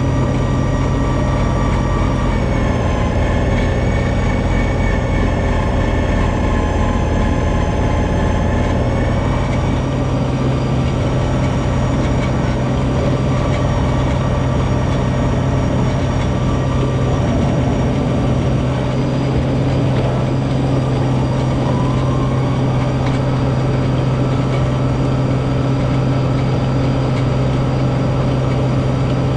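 John Deere 2032R compact tractor's three-cylinder diesel engine running steadily while it drives a 60-inch front-mounted snow blower that is throwing snow. The engine note sags slightly in pitch for several seconds from about two seconds in, then recovers.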